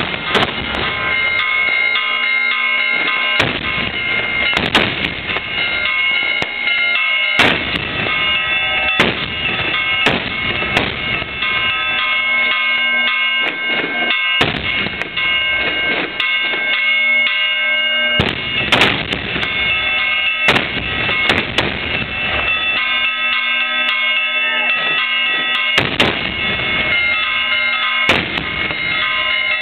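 Fireworks and Easter dynamite firecrackers exploding in quick succession, a sharp blast every second or two, with steady music playing underneath.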